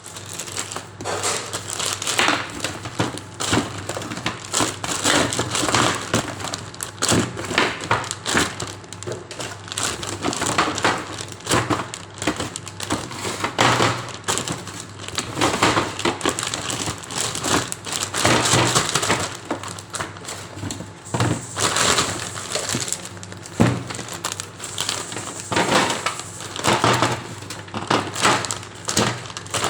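Plastic bags and food packaging rustling and crinkling, with irregular knocks and clatters, as groceries are handled and sorted.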